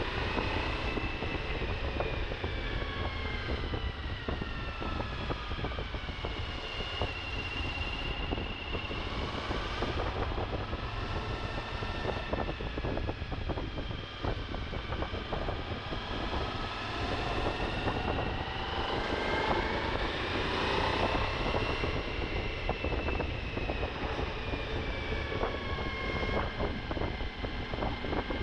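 Suzuki V-Strom motorcycle engine running while riding off road, its pitch slowly rising and falling with the throttle, over a low rumble and scattered knocks.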